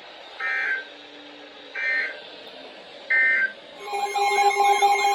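NOAA Weather Radio SAME digital data signal: three short, harsh bursts of data tones about 1.3 seconds apart over faint hiss. About four seconds in, a loud steady alert tone starts and carries on, signalling that a new warning is about to be broadcast.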